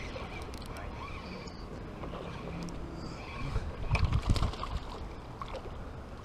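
A small hooked peacock bass splashing and thrashing at the water's surface close to shore, loudest about four seconds in, over a steady low wind rumble on the microphone.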